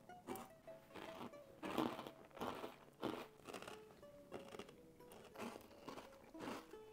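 People biting and chewing crisp bread pieces topped with foie gras: irregular crunches as they bite. Soft plucked-string background music plays underneath.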